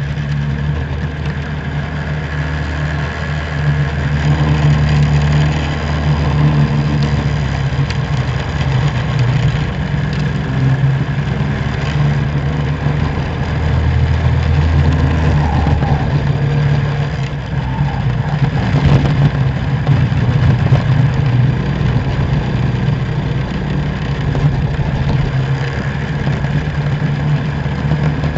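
Racing kart engine running on track, its note steady and then wavering as the kart speeds up from a crawl to racing speed through the corners.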